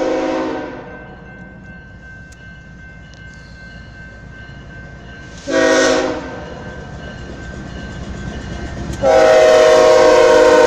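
Air horn of a pair of BNSF diesel locomotives sounding the grade-crossing signal: a long blast that ends just after the start, a short blast about six seconds in, then a long, loud blast held from about nine seconds in as the locomotives reach the crossing. The engines' rumble runs underneath between the blasts.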